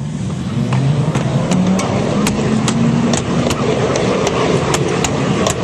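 Ride-on miniature railway train rolling past close by, with a steady rumble and its wheels clicking over the rail joints about two or three times a second.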